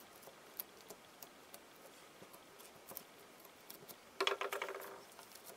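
Faint soft, sticky clicks and ticks of fingers pressing and kneading the doughy, mashed-potato-like filling of a squishy tomato toy. About four seconds in, a short pitched sound starts suddenly and fades out.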